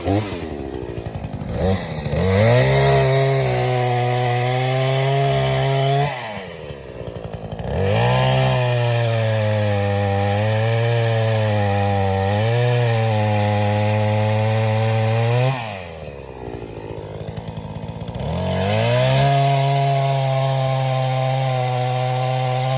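Gas Craftsman chainsaw with an 18-inch bar cutting into a silver maple trunk to fell it: the engine runs up to full throttle and holds steady under load three times, for several seconds each, dropping back to idle in between.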